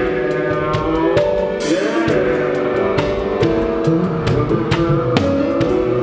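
A band playing music: a drum kit keeps a steady beat of sharp stick hits, with kick and snare, under sustained chords from the band.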